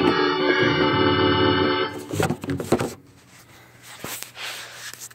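Roland VR-09 keyboard playing a held organ chord that cuts off about two seconds in, followed by a few sharp clicks and knocks and then faint handling noise.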